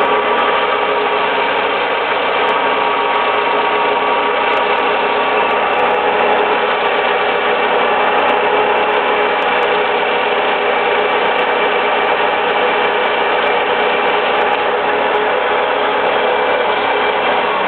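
Water-cooled diamond band saw for stained glass running steadily: a loud, continuous mechanical whirr with several steady tones over a hiss.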